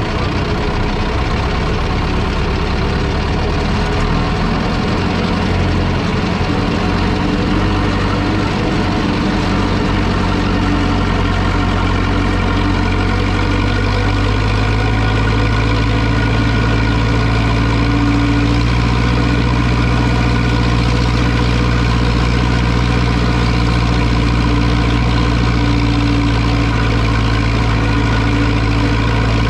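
Zetor 6245 tractor's four-cylinder diesel engine running. Its note wavers for about the first ten seconds, then settles into a steady, even run.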